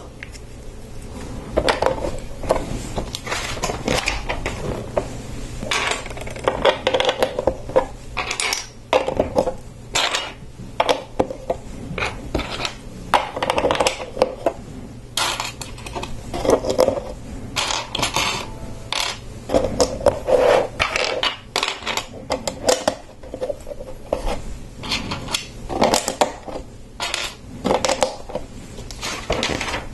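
Plastic LEGO bricks clicking and clattering: pieces picked from a loose pile and snapped onto a studded baseplate, in irregular clicks throughout.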